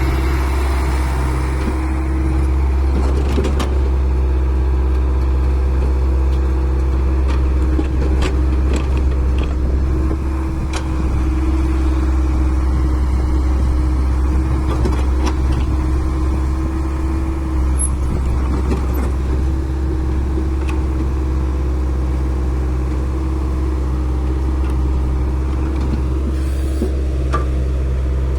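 Engine of a heavy digging machine, such as a JCB or excavator, running steadily, with a few short clicks and clatter over it.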